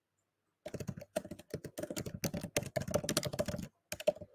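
Fast typing on a computer keyboard: a quick, dense run of keystrokes that starts just under a second in and stops shortly before the end.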